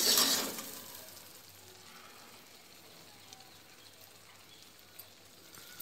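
A spatula scraping in the kadai at the start, fading over about a second into a faint, steady sizzle from the cooling pan.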